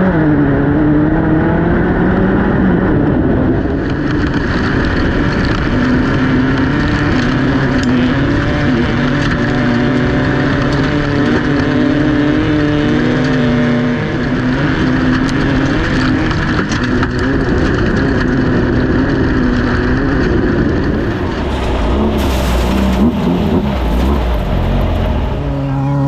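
Class 1600 off-road race car's air-cooled VW 1600 engine running hard, its pitch rising and falling with the throttle and gear changes, over a steady rough rattle and rush. A brief hiss comes in near the end.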